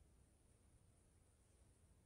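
Near silence: faint room tone with a low, even rumble.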